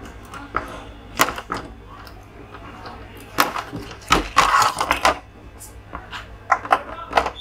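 Snap-lock clips of an LED TV's lower display-panel frame clicking as the frame is pried loose: a string of sharp clicks, with a longer scraping stretch about four seconds in.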